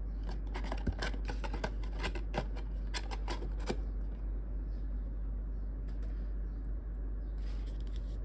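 Cardboard and paper packaging being handled and opened: a quick run of clicks and taps over the first few seconds, then quieter rustling, over a steady low hum.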